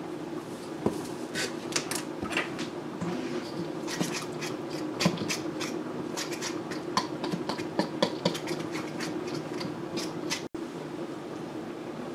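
A metal fork scraping and clicking against a stainless steel mixing bowl as eggs and flour are stirred together, in quick, uneven strokes that stop about ten seconds in. A steady low hum runs underneath.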